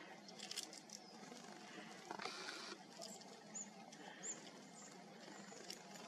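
Faint, thin, high-pitched calls of small songbirds at a seed feeder: a few short notes in the second half. There is a brief rustle a little over two seconds in, and a few light taps.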